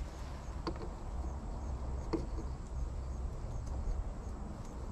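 A Freeze Miser freeze-protection valve being threaded onto an outdoor hose faucet: a couple of faint clicks, over a low steady rumble and faint, evenly repeating high chirps.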